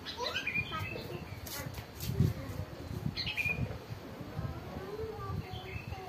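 Caged songbirds chirping: two short, sharp, falling chirps, about half a second in and about three seconds in, over a low background rumble.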